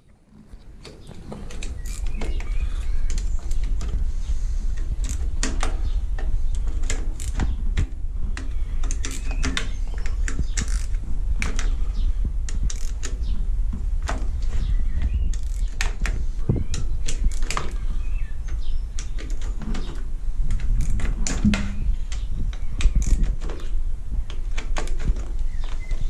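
Irregular clicks and knocks of screws, tools and parts being handled on a three-cylinder engine's plastic rocker cover during teardown, over a steady low rumble.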